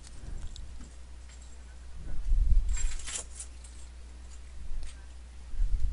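Sharp clicks from a computer mouse and a few low thumps on the microphone, over a steady low electrical hum from a poor-quality recording setup.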